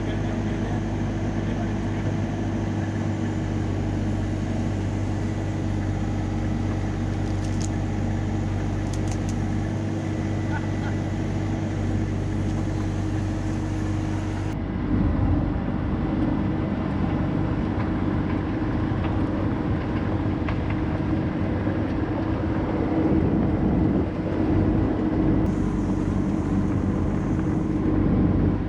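Compact excavator's diesel engine running steadily while working. About halfway through it turns louder and more uneven, as under heavier working load.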